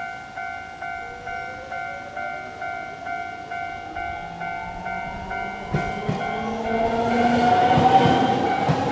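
Level-crossing warning bell ringing about twice a second as a Nankai electric train comes through. The train's motor whine rises steadily in pitch as it gathers speed. From about six seconds in, the wheels clatter over rail joints and the passing train grows louder, covering the bell.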